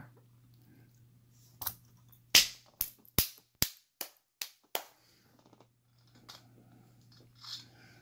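Small metal padlock parts clicking and tapping as they are handled and set down: a quick, irregular run of about eight sharp clicks over three seconds, then only faint handling.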